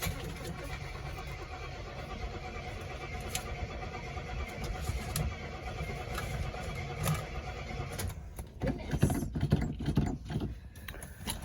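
Cold start of a 1971 car: the starter cranks the engine over steadily for about eight seconds without it catching.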